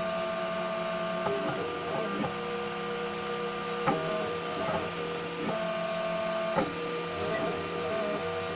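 3D printer running a print, its stepper motors whining in steady tones that jump to new pitches every second or so as the print head changes moves. There is a sharp tick about four seconds in and another near seven seconds.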